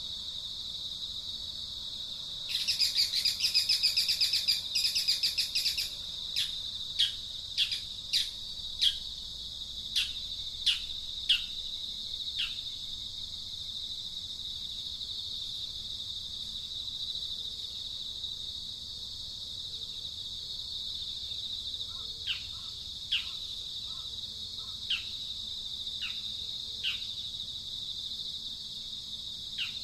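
Outdoor ambience: a steady high-pitched insect drone, with birds calling over it. A harsh buzzy chatter from about two and a half to six seconds in is the loudest part. It is followed by a string of short, quick, falling chirps, and more of these come near the end.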